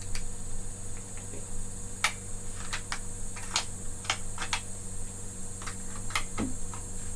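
Sharp clicks from an Armscor air rifle being handled and its reconditioned safety and trigger worked, about a dozen scattered clicks, with a louder knock at the end. A steady low hum runs underneath.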